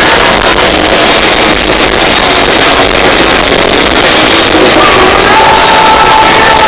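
Loud live rock band music, heard through an overloaded, distorting audience recording. A steady held note comes in about five seconds in.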